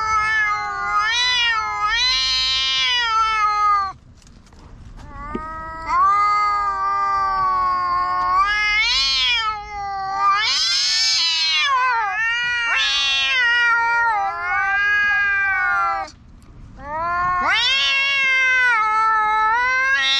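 Two cats yowling at each other in a quarrel, a loud standoff of long, drawn-out calls that waver up and down in pitch. The calls come in three long stretches, with short pauses about four seconds in and near sixteen seconds, and in places the two voices overlap.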